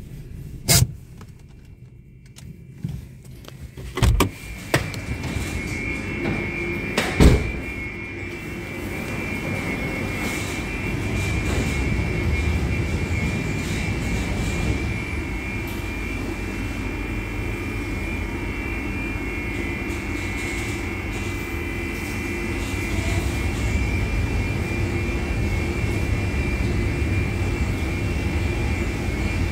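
Tammermatic T700 Lux touchless car wash gantry spraying the car with high-pressure water: a steady rushing hiss and low rumble that build up after the first several seconds, with a steady high tone running under it. A few sharp knocks come in the first seven seconds.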